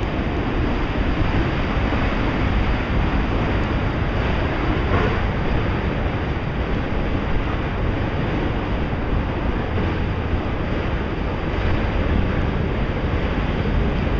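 Autorack freight cars rolling past on the track: a steady, even rumble of steel wheels on rail that holds throughout.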